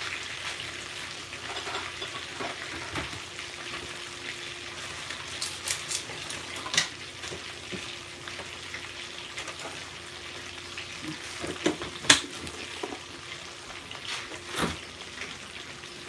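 Food deep-frying in hot grease, a steady sizzle and crackle, with a faint steady hum underneath and a few sharp clicks, the loudest about twelve seconds in.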